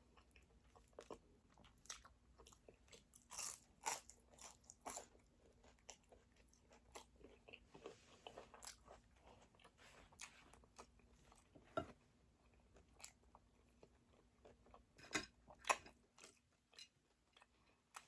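Close-up eating sounds: chewing and biting into crispy chicken wings, with irregular sharp crunches and smacks, the loudest clusters about three to five seconds in and again near the end.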